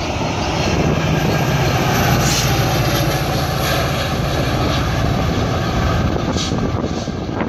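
VIA Rail passenger train passing at track side: a diesel locomotive's steady drone with the rolling rumble of the coaches. Heavy wind buffets the microphone throughout.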